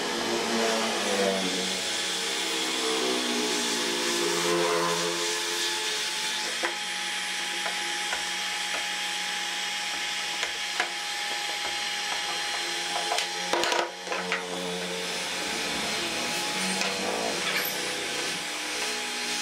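Electric heat gun blowing steadily, a hiss with a steady whine. A few sharp wooden clicks and knocks come from the strip being set into the groove, the loudest about two-thirds of the way through.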